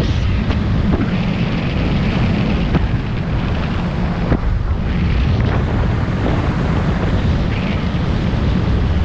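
Heavy wind buffeting on the microphone of a boat running fast, over the steady drone of its outboard motor and the rush of water along the hull.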